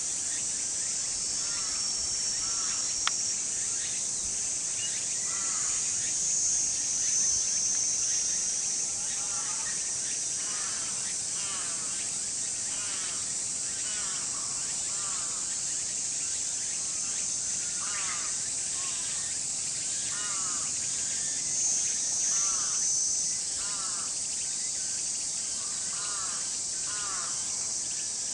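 A steady, high insect drone, swelling twice, with short bird calls repeated every second or so.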